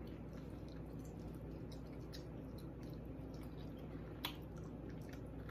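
A person chewing a mouthful of baked ziti close to the microphone: soft, wet, squishy mouth sounds with small clicks, and one sharper click a little past four seconds in.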